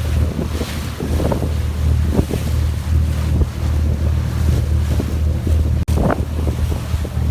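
Tour boat's engine droning steadily, with wind buffeting the microphone and water rushing past the hull.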